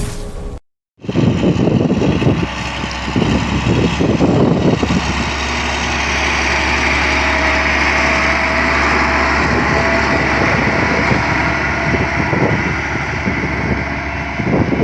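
Diesel engine of heavy road-construction machinery running steadily under a high steady whine, starting about a second in after a brief silence.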